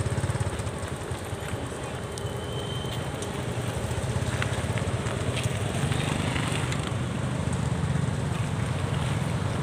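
Steady low engine rumble of a vehicle running, with a few short clicks and crackles over it.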